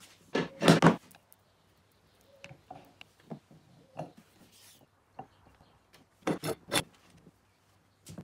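Glued wooden strips being set down and pushed together across metal pipe clamps during a glue-up. There is a loud clatter of wood on wood and metal about half a second in, then scattered lighter knocks and rubs, and another sharp double knock past six seconds.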